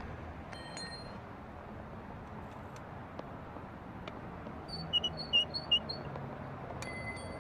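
A small bird chirping: a quick run of about five short high notes about five seconds in, with a couple of brief high calls before and after, over a steady outdoor hiss.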